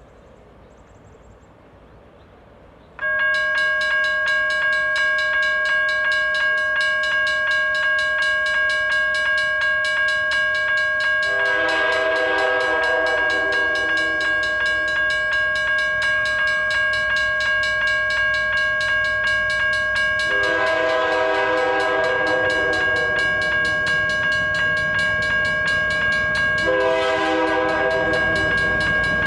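A railroad crossing signal bell starts suddenly about three seconds in and keeps ringing with a steady pulse. Over it the approaching freight train's diesel locomotive horn sounds three long blasts, with a fourth starting at the very end: the warning signal for the grade crossing.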